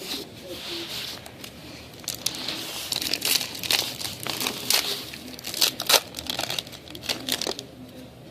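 Wrapper of a hockey card pack being torn open and crinkled by hand: light rustling, then from about two seconds in a dense run of sharp crackles and rustles that dies down near the end.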